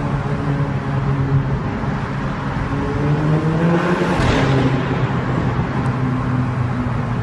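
MK6 Volkswagen GTI's turbocharged four-cylinder, heard through a tuned, resonator-delete Corsa turboback exhaust. The exhaust note rises in pitch under load, drops sharply about four seconds in with a brief burst of noise, then runs steadier at a lower pitch.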